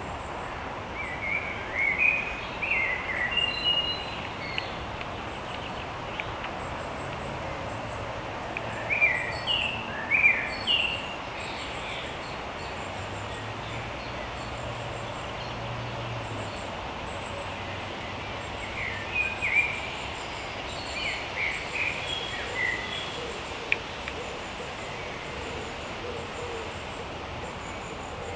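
Birds calling: three short runs of quick, high, curved notes over a steady background hiss.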